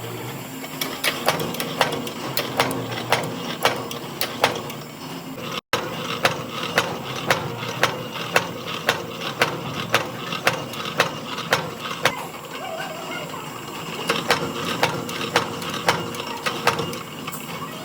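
A factory machine in the ammunition-making process clacking rhythmically, a little over two sharp metallic strokes a second over a steady machine hum, with a short gap in the strokes about two-thirds of the way through.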